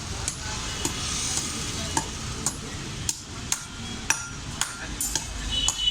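Hammer blows on iron at the anvil, about two strikes a second, some with a short metallic ring, over a steady noisy background.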